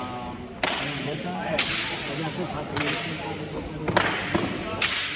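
Hand-pelota rally: a leather pelota struck by bare hands and smacking off the fronton's walls, about six sharp cracks, each echoing through the hall.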